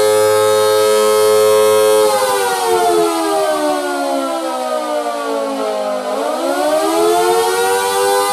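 Small electric motor siren with a flared horn, sounding a steady tone, then winding down in pitch over about four seconds and winding back up to full pitch near the end.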